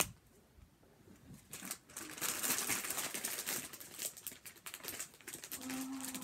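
Crinkly plastic packaging being handled and rustled. It starts about a second and a half in and keeps up busily, in irregular bursts of crackling.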